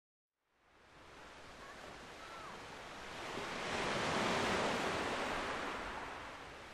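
Ocean surf: one wave washes in, rising to its loudest about four seconds in, then draws back.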